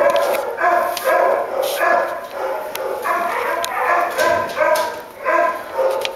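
Several shelter dogs barking, the barks overlapping in a steady din of about two or three a second.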